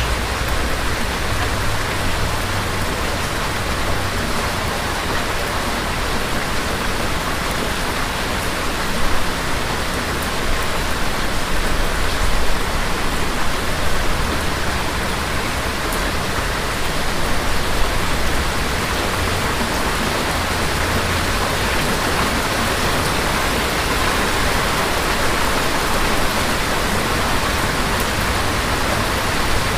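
Steady rain falling, with a low rumble of distant thunder swelling and fading underneath.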